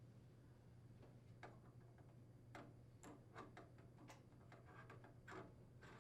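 Near silence with faint, scattered small clicks and ticks over a low steady hum: light bulbs being seated in the vent hood's lamp holders and twisted clockwise into place.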